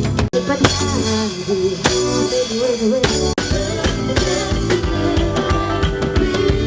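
Band music with drum kit and guitar playing, with a wavering melodic line over it; the sound cuts out for an instant twice, about a third of a second in and again around three and a half seconds in.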